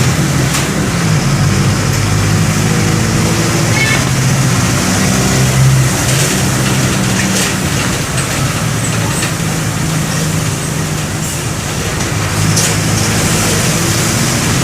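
Mercedes-Benz OF-1722M bus's OM-924 LA four-cylinder inline turbodiesel engine running under way, heard from on board, its pitch rising and falling with engine speed, with scattered short rattles and clicks.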